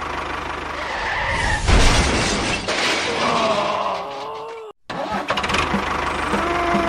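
A cartoon construction vehicle's engine running with a steady pulse, broken by a loud crash-like burst about two seconds in and some sliding pitched tones. The sound drops out briefly just before five seconds, then the engine picks up again.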